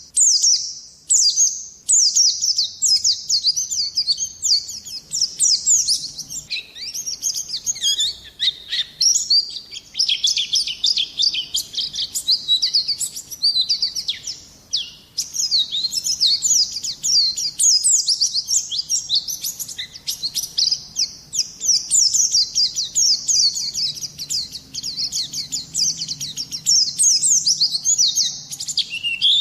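Small songbird singing a fast, unbroken stream of high, sharp chirps and quick down-slurred notes, with brief stretches of lower twittering. This is masteran song, a recording used to tutor caged songbirds.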